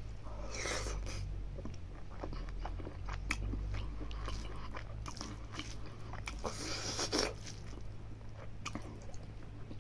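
A man chewing a mouthful of mithun skin curry and rice, with wet, sticky mouth sounds. Crackly bites come at about half a second, three seconds and seven seconds in, over a low steady hum.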